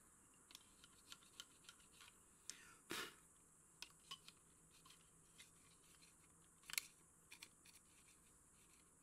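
Faint plastic clicks and scrapes of a string trimmer's bump-feed head being turned and handled by hand, with a louder scrape about three seconds in and a sharp click near seven seconds.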